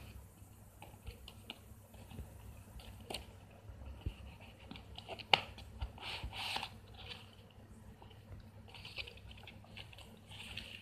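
Paper and card rustling and crinkling as a paper-wrapped gift box is handled and opened out, with scattered small clicks and one sharp click about halfway through. A faint low hum runs underneath.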